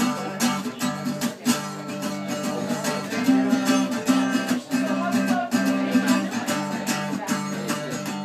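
Acoustic guitar strummed in a steady rhythm of chords, with no singing.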